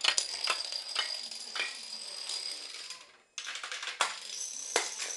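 Plastic Domino Rally dominoes toppling in a chain on a wooden floor: a rapid clatter of small clicks with a few louder knocks. It breaks off for a moment about three seconds in, then carries on.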